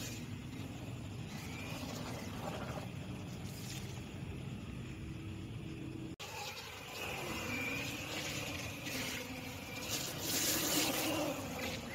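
Brushless electric motor of an HSP Wolverine 1/10 RC monster truck whining, rising and falling in pitch as it speeds up and slows, with its tyres hissing and splashing through shallow standing water. The splashing spray grows loudest about ten seconds in.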